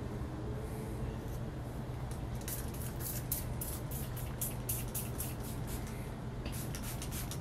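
A comb being pulled through thick, coarse hair close to the microphone: a run of short scratchy strokes, several a second, starting a couple of seconds in and again near the end, over a steady low hum.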